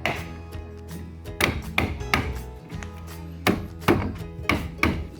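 Background music under a run of about ten sharp knocks at uneven spacing, some in quick pairs.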